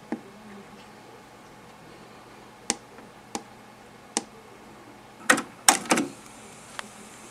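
Push-button clicks on a Denon DRM-650S cassette deck's front panel: single sharp clicks a second or so apart, then a louder cluster of clicks about five to six seconds in as the deck goes into record and play.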